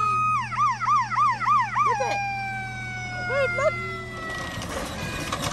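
Fire truck siren passing in a parade. It holds a steady tone, switches to a fast up-and-down yelp, then gives a long tone that slowly drops in pitch and fades away.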